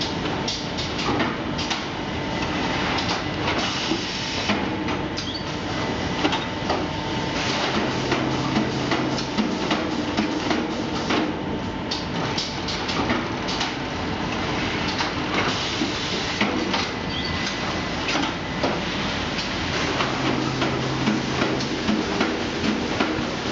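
Automatic sack-packing machinery running: steady machine hum with frequent clicks and knocks from the pneumatic bag-placing arms, a short hiss about four seconds in, and a low hum that comes in twice for a second or two.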